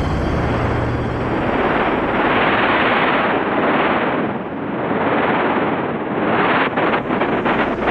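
Electronic sound-design noise: a dense hiss that swells and fades twice, then breaks into rapid crackling stutters near the end.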